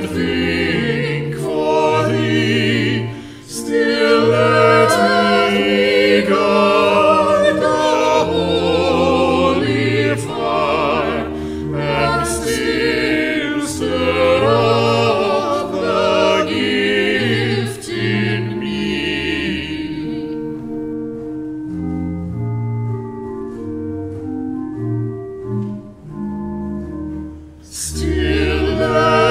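Choir singing with instrumental accompaniment. About two-thirds of the way through, the voices drop out for a short instrumental passage, and the singing comes back near the end.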